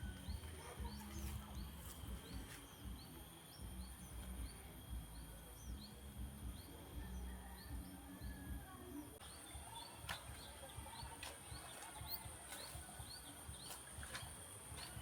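Tropical jungle ambience: short rising chirps repeating about twice a second, most likely a bird, over a steady high-pitched hum of insects.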